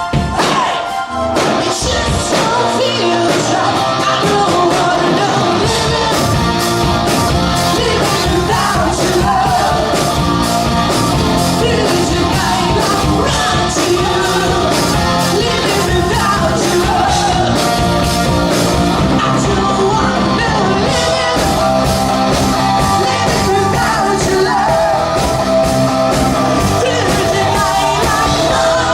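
Rock music with sung and shouted vocals; a steady drum beat comes in about six seconds in.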